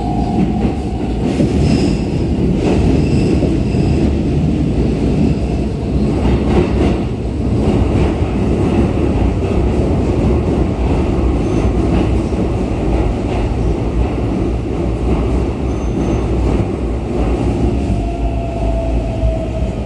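Running noise inside a Keikyu New 1000 series electric commuter car in a tunnel: a steady, loud rumble of wheels on rail with faint high squeals. Near the end a motor whine falls in pitch as the train slows into the station.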